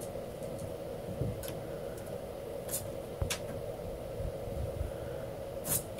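Steady low hum of room tone with several light clicks and taps scattered through.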